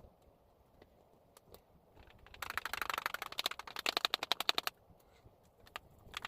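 A hard agitator rattling inside a container of cream as it is shaken by hand to churn butter: a fast, even clatter of about ten knocks a second that starts about two seconds in and lasts about two seconds, with a short burst again near the end.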